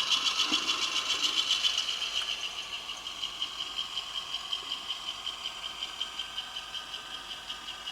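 Model locomotive DCC sound decoder playing a Hymek diesel engine sound through a small speaker, with an even beat of about five pulses a second that grows gradually quieter. The thin, buzzing tone with a rattle is the small speaker vibrating in its temporary mounting, which the owner puts down to the speaker not yet being anchored properly.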